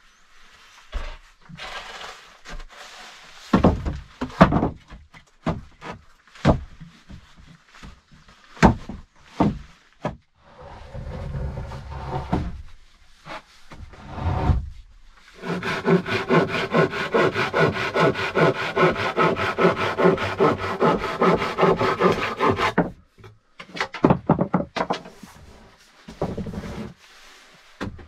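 Wooden planks being handled: a run of knocks and thuds as boards are set down, then a long grating rub of a plank dragged across other boards for about seven seconds in the second half, stopping abruptly.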